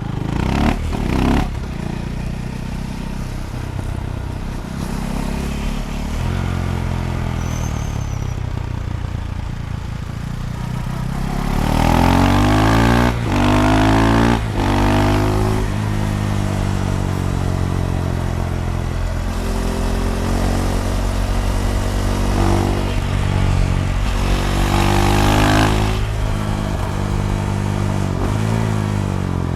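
KTM Duke 390's single-cylinder engine through a decatted Akrapovic slip-on exhaust. It runs low for about ten seconds with a couple of quick blips near the start, then revs up hard with sharp breaks in the pitch twice over, peaking loudest about midway and again near the end.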